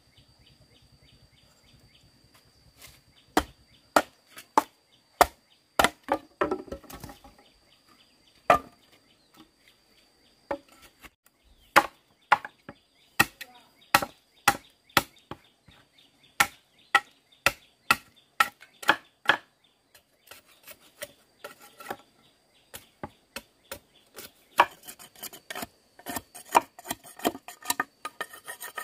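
Repeated sharp chopping strikes of a blade into wood. They come irregularly, about one or two a second, with a quicker run near the end.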